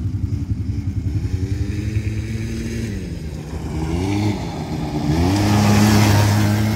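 Small youth quad bike (ATV) engines revving up and down, the engine note rising and falling several times. One quad passes close about five seconds in, the loudest moment, its engine and a rush of noise swelling then easing.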